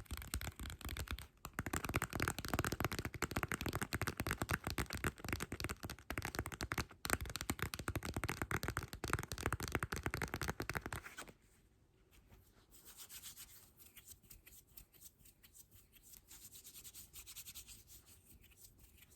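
Rapid scratching and rubbing strokes on a surface, an ASMR trigger. It is dense and fairly loud for the first eleven seconds or so, with two short pauses, then drops to a softer, lighter rubbing.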